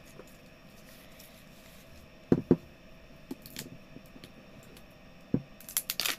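Handling of a toy's cardboard-and-paper capsule packaging: a few light knocks as it is handled, two close together a little past halfway and one more near the end, then crinkling and tearing of its paper wrapping over the last half second as it is pulled open.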